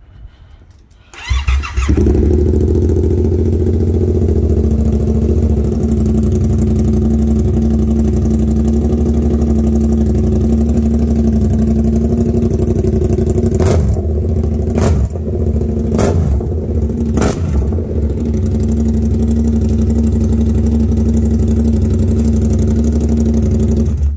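2022 Yamaha R7's 689 cc parallel-twin engine through an SC-Project exhaust, starting up about a second and a half in and settling into a steady, loud idle. It gets four quick throttle blips around the middle and is switched off near the end.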